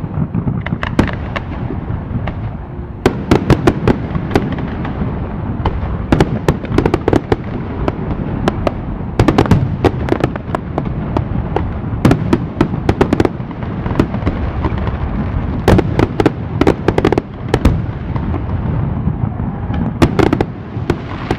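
Fireworks display: a continuous low rumble of bursts with many sharp, irregular crackles and bangs, often in quick clusters.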